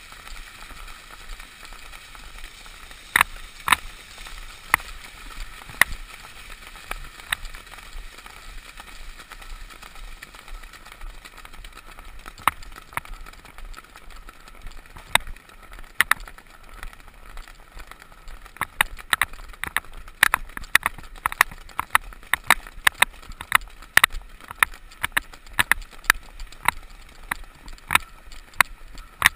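Horses cantering through shallow surf, heard through a GoPro's housing: a steady muffled hiss of wind and water with sharp knocks from the horse's stride. The knocks are scattered at first and come in quick runs over the second half.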